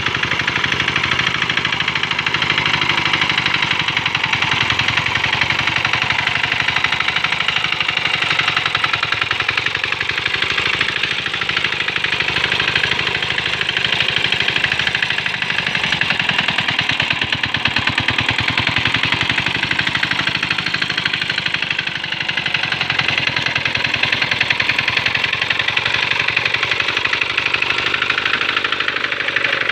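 Small single-cylinder diesel engine of a hand tractor running steadily, with a fast, even knocking beat.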